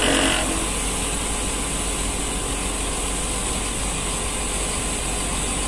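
Compressor of an old Panasonic R22 split air conditioner running steadily with a rough, snoring-like grinding noise, as if it were working hard. The technician takes the noise for most likely a compressor low on oil, or one worn by long use; it is drawing about 6.9 A, high for a 1.5 PK unit.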